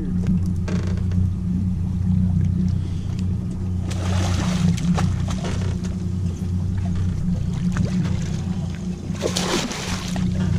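Boat engine idling with a steady low hum, and splashing as a hooked red snapper thrashes at the surface beside the hull, once about four seconds in and again near the end.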